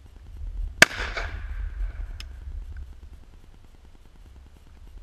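A single 12-gauge shotgun shot firing a homemade wax slug load: one sharp, very loud crack that rings out and echoes for about half a second. A fainter sharp tick follows just over a second later, over wind buffeting the microphone.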